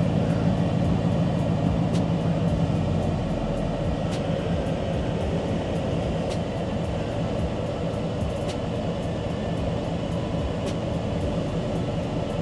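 Steady low mechanical hum with a noisy rush over it, unchanging throughout.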